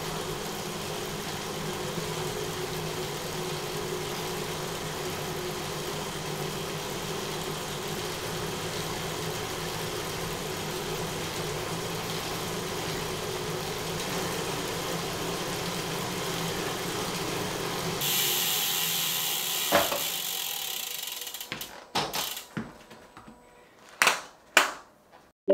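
Wahoo KICKR ROLLR smart roller trainer running in ERG mode under a pedalling rider: a steady hum of tyres and rollers with a few low tones, metered at about 47 to 49 dB. Near the end it turns to a brighter hiss for about two seconds, then dies away, followed by several sharp knocks and clicks.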